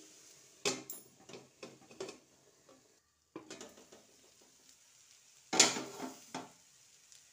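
Steel lid clanking on a steel kadhai: a sharp clank as it is set on about a second in, a few lighter knocks, then a louder clank past halfway as it is lifted off.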